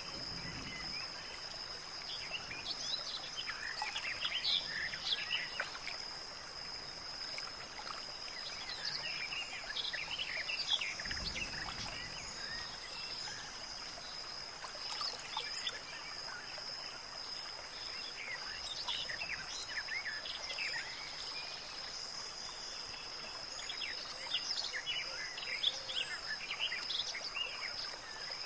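Outdoor nature ambience: scattered short bird chirps in bursts every few seconds over a steady high insect buzz and a soft background hiss.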